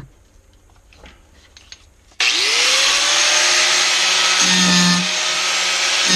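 A handheld power grinder starts about two seconds in, its whine rising as the motor spins up, then runs steadily with a harsh grinding as it cleans up the edges of the cut-out floor-pan opening. Before it starts there are only a few faint clicks and a knock.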